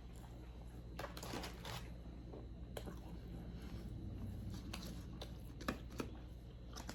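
Faint chewing and mouth sounds of someone eating hot wings, with scattered short wet smacks and clicks.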